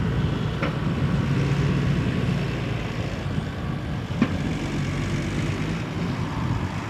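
New Holland tractor's diesel engine running steadily under load as it tows a full silage trailer past. Two sharp knocks come through, one about half a second in and one about four seconds in.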